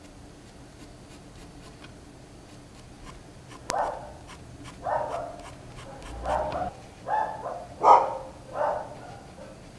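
Faint scratching of a graphite pencil on paper. From about four seconds in, a dog barks six times, roughly a second apart, and the barks are the loudest sound.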